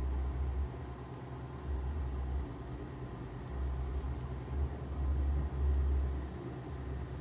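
Small electric motor of a tumbler cup turner running steadily, a low hum whose rumble swells and fades irregularly.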